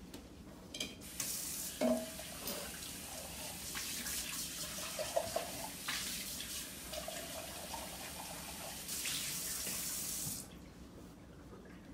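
Kitchen tap running into a sink for about nine seconds, with scattered clinks and knocks of things being handled under the water. The tap is then shut off abruptly.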